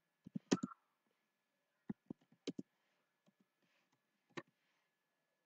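Computer keyboard keys being typed in a few short, faint groups of clicks with gaps between them.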